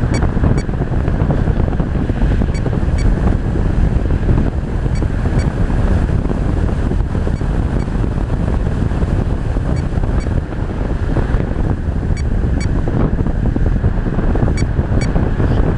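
Steady rush of wind buffeting the camera microphone, heaviest in the low end, with faint high ticks here and there.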